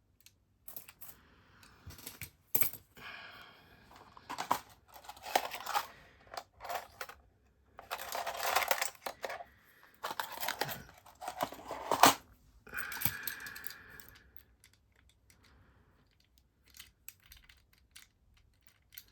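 Lock pick and tension wrench scraping and clicking inside the keyway of a cheap Yuqi lock while it is being picked: irregular metallic scrapes and ticks, with one sharp click about twelve seconds in. The lock's soft metal is bending under the tools rather than letting the pins set, as the picker puts it.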